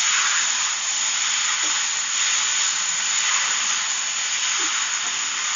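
Penne pasta in tomato sauce sizzling in a metal kadai over a high gas flame while a spoon stirs it: a steady frying hiss.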